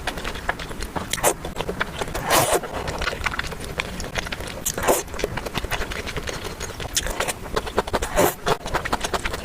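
Close-miked eating sounds: chewing with many small wet clicks and crackles, and a few louder noisy bursts through the stretch.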